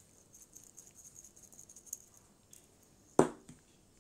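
Salt being shaken over raw potato wedges: a fine, high rattling patter for about two seconds, then one sharp knock a little after three seconds in.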